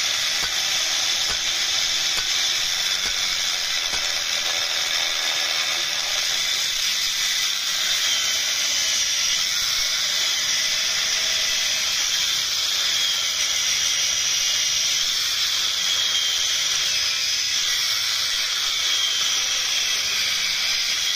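Steady hissing noise with faint wavering high whistles running through it.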